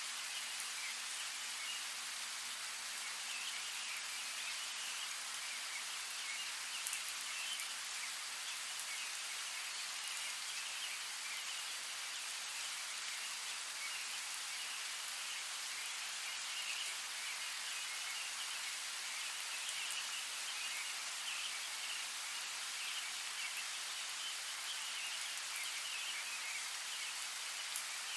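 Steady rain, an even hiss, with a couple of sharper drop ticks.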